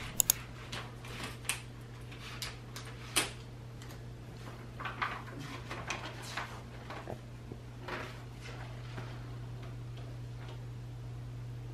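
Scattered clicks and light knocks from UPPAbaby Vista V2 stroller parts being handled and fitted together during assembly, over a steady low hum. The clicks come mostly in the first nine seconds, and a few sharper knocks stand out near the start and about three seconds in.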